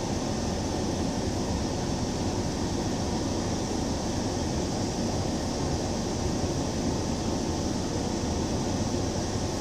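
Steady rushing background noise with a low rumble, even throughout, with no distinct events.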